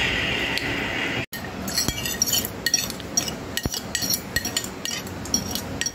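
Metal spoon clinking against a dish again and again while scooping food, many quick light clinks. A steady background hum runs for about the first second and cuts off suddenly before the clinking starts.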